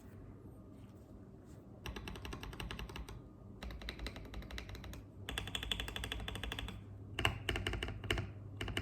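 Mechanical keyboard with Fantasy carrot tactile switches being typed on in fast runs of keystrokes. The runs start about two seconds in, with short pauses between them.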